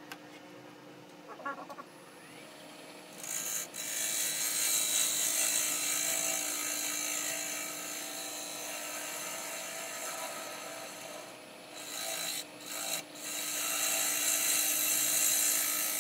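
A turning tool cutting a black walnut bowl blank spinning on a wood lathe: a steady hiss of the cut over the lathe's low hum, starting about three seconds in and broken off twice briefly about three quarters of the way through. The recording is sped up.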